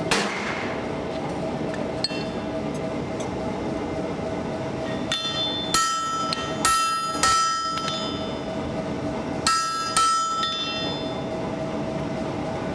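Hammer blows on a steel anvil, each followed by a bright bell-like ring, as a forged H13 axe drift is straightened: one strike at the start, then three pairs of strikes from about five to ten seconds in. A steady hum of shop equipment runs underneath.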